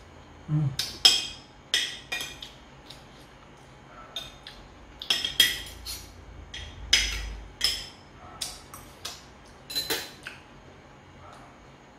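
Metal spoon and fork clinking and scraping against a plate and a small glass bowl as cheesecake is cut and scooped, with irregular sharp clinks throughout. A brief low thump comes about seven seconds in.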